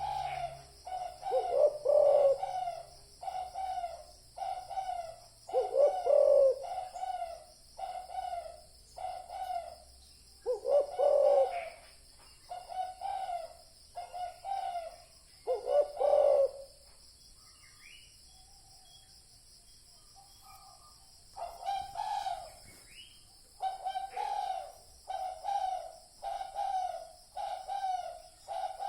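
Spotted dove cooing: a string of short coos about once a second, with a louder, deeper coo every few seconds. The calling breaks off for a few seconds past the middle, then resumes.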